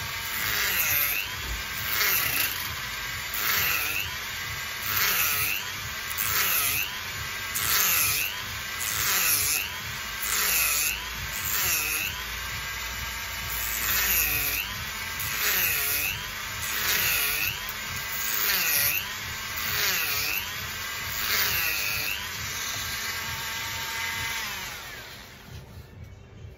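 Handheld rotary tool running at high speed, its bit grinding grooves into a coconut shell. The whine dips in pitch and the grinding swells about every second and a half as the bit is pressed into the shell. Near the end the tool is switched off and winds down.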